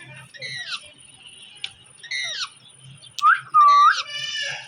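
Pet parrot calling: a string of short chirps and squawks with quick sweeps in pitch, the loudest a clear whistled call about three and a half seconds in, followed by a harsher, buzzier call.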